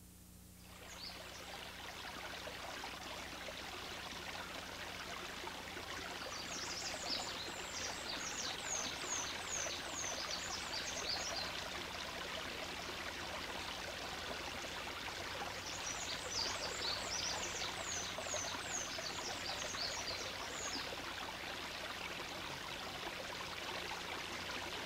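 Steady rushing water, like a stream, fading in within the first second. Over it come two runs of high, quickly falling birdlike chirps, each lasting several seconds.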